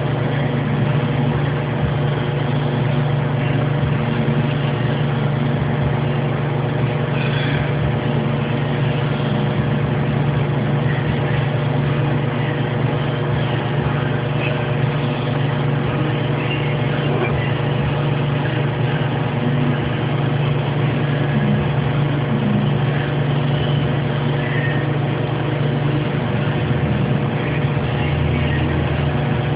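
TIG welding at a butt weld on a pipe flange: a steady electric buzzing hum from the welding arc and machine, unchanging throughout.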